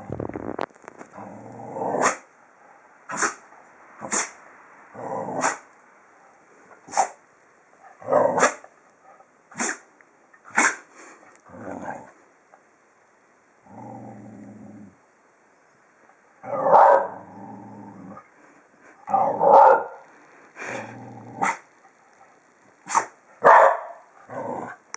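A pet animal's threat display: low growls and a string of short, sharp bursts repeated at irregular intervals, with sneezes among them.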